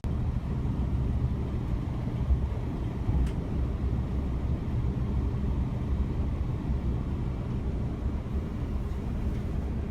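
Steady low rumble of a vehicle running, with no clear changes.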